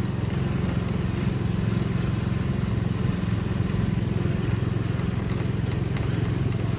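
Motorcycle engine running steadily while riding slowly, a low even hum.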